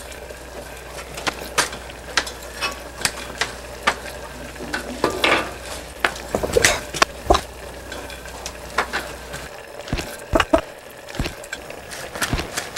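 Kitchen clatter: irregular clicks and clinks of utensils against pots and dishes, about one or two a second, over a low steady hum that drops out about three seconds before the end.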